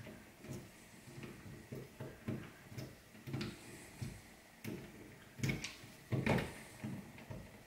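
Irregular light clicks and taps of pliers working the stripped copper ends of cable conductors, with a few louder clicks about five and a half and six and a half seconds in.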